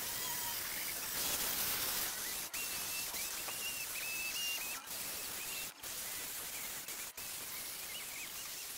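Power-tool-driven wire brush scrubbing rust off a cast-iron meat grinder body: a steady harsh hiss with a wavering motor whine. It drops out briefly four times as short clips are cut together.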